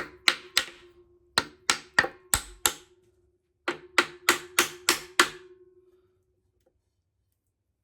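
Hammer tapping on metal parts of a Hemi 265 straight-six's bottom end to knock them loose once their bolts are out. Three runs of sharp taps, about three a second, with a ringing metallic tone lingering under them; the taps stop about six seconds in.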